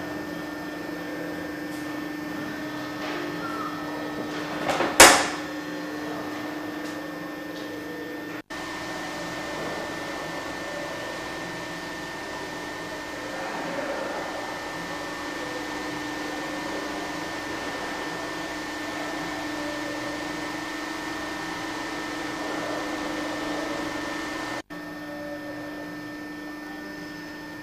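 Steady mechanical hum at one constant pitch, with a single loud, sharp click about five seconds in.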